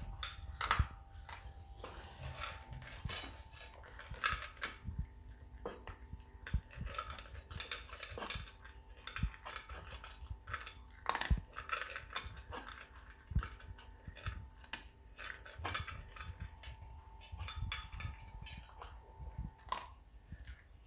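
A Yorkshire terrier eating from a stainless steel bowl: irregular clinks and clicks as its mouth and the food knock against the metal bowl.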